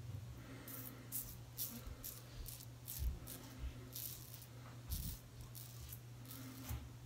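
Safety razor scraping through lathered stubble on the chin and neck in short strokes, a run of quick scratchy rasps about one or two a second, over a low steady hum.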